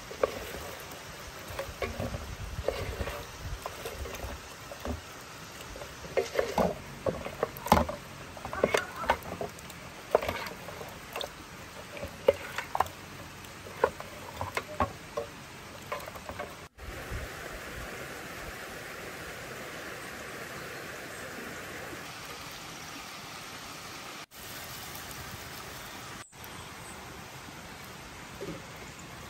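A spoon clinking and scraping against a metal cooking pot as lamb and tomato paste are stirred, over a sizzling hiss. After about 17 seconds the knocks stop and only a steady hiss remains.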